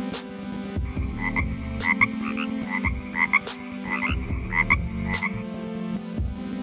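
A frog calling: a run of short croaks, several in quick pairs, from about a second in until a second before the end. Background music with a steady beat plays throughout.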